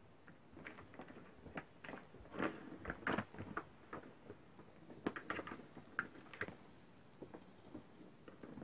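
Light, irregular clicks and knocks from a Catit Senses 2.0 Super Circuit plastic ball track as cats paw at it. The clicks come thickest over the first few seconds and again a little past the middle, then thin out.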